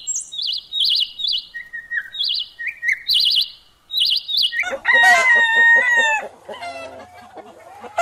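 A bird calls in short, high, repeated chirping trills for about the first half. Then a rooster crows once, a long call, and softer clucking follows.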